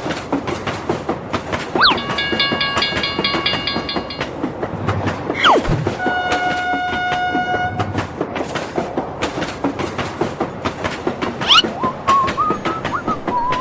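Train sound effects: a steady rhythmic clickety-clack of wheels on rail joints, with two train horn blasts of about two seconds each. The first, about two seconds in, is a chord of several notes; the second, about six seconds in, is a lower single-pitched horn. Quick sliding whistle swoops come about two, five and a half and eleven and a half seconds in.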